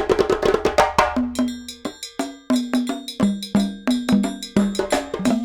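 Background music with a quick percussion beat of wood-block-like clicks and short pitched notes.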